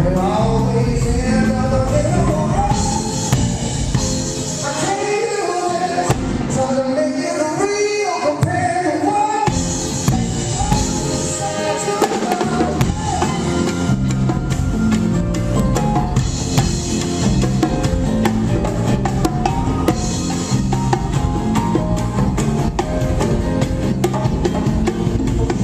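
Band music: a singer over drum kit, bass and band with a steady beat. The singing drops out about halfway through and the band plays on.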